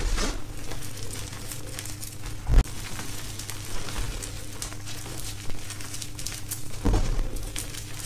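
Hands crushing and scooping dyed gym chalk powder: a soft, crackly crunch of crumbling chalk, with a few dull thumps as the hands press in, the loudest about two and a half seconds in.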